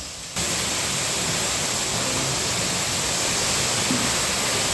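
Waterfall rushing: a steady, full noise of falling water that sets in suddenly just after the start.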